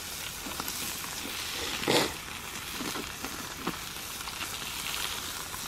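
Burgers and scallops sizzling on aluminium foil over a campfire grate, with a wooden spatula stirring and scraping the foil; one brief louder scrape about two seconds in.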